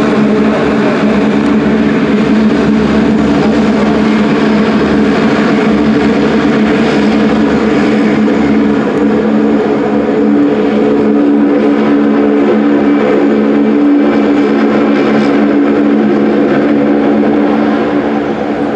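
Loud, steady machinery drone with a low, even hum, like an engine or generator running continuously, easing slightly near the end.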